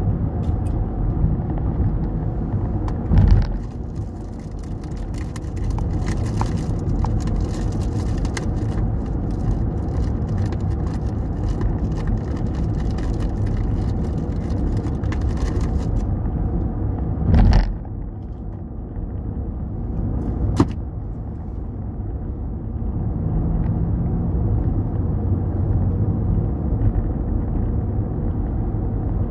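Steady road and engine rumble heard inside a car's cabin while it cruises along a freeway. Three short thumps stand out, about three seconds in, past halfway and soon after, with faint crackling ticks through much of the first half.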